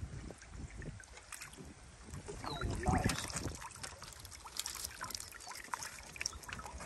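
Water trickling and splashing off a wire crab ring net as it is hauled up out of the water with blue crabs in it, with scattered small clicks and a louder splash about three seconds in.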